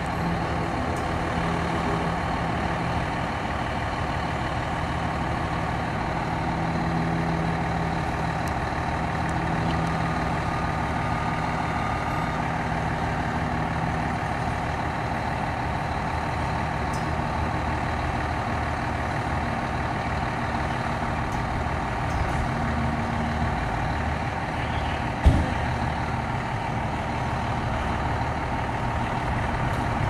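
Fire engine's diesel engine idling steadily in the station bay, with one sharp thump late on.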